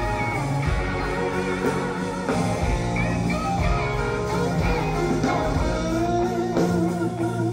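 Live rock band playing, with electric guitar lines to the fore over bass and drums, heard on an audience recording.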